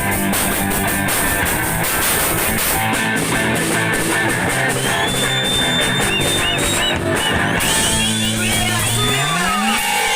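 Punk band playing live: distorted electric guitar, bass and drum kit. About three-quarters through, the drums stop and the song breaks down into high wavering guitar squeals and a low bass note sliding upward.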